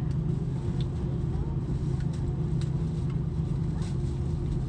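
Steady cabin drone of an Airbus A330-900neo taxiing, heard inside the cabin: its Rolls-Royce Trent 7000 engines at idle together with the cabin air, with a few faint clicks.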